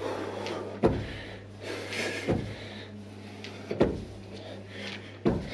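Jumping squats: sneakers landing on a tiled floor, a thud about every second and a half, four times, with hard breathing between the landings.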